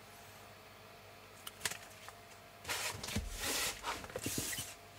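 Laserdisc jackets being handled: a couple of light taps about a second and a half in, then about two seconds of rustling and sliding as the sleeves are shuffled.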